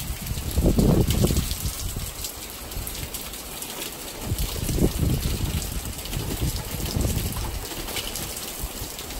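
Heavy rain falling on a balcony's wooden railing, plants and glass-topped table, a steady hiss with many small drop ticks. Low rumbling surges come and go, the loudest about a second in and again around five seconds in.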